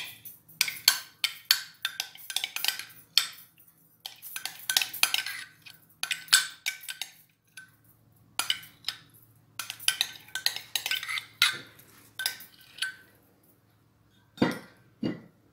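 Metal spoon clinking and scraping against glass over and over as thick mayonnaise is scooped from a glass measuring cup into a glass blender jar. Near the end come two duller knocks.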